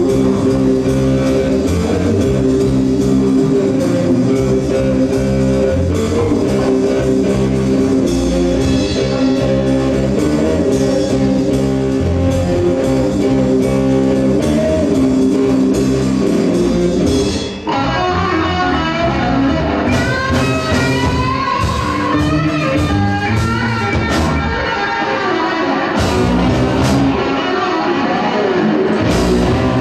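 Live rock band playing an instrumental passage on electric guitars, keyboard and drum kit. About two-thirds of the way through the music dips for a moment and comes back with a new section carrying a higher melodic line with sliding notes.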